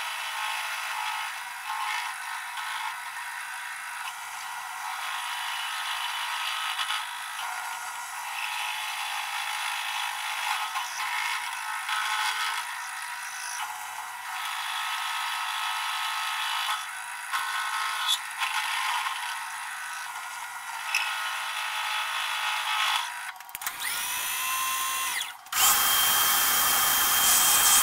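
Milling machine end mill cutting into an aluminium block, hogging out a deep pocket, a steady busy machining noise. About 23 seconds in, a workshop vacuum starts with a rising whine and runs loudly, sucking up the aluminium chips.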